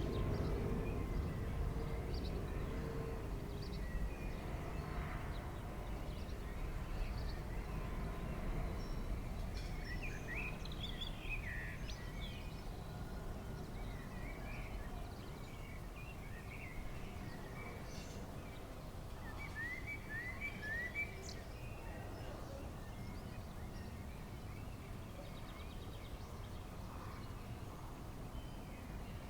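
Jet airliner on landing approach overhead, its low engine rumble with a faint steady tone fading away over the first dozen seconds or so. Songbirds chirp in short bursts.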